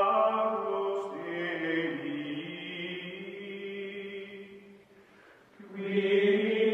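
Outro music: a choir-like chant of long, held vocal notes. It fades almost away about five seconds in, then comes back strongly just before the end.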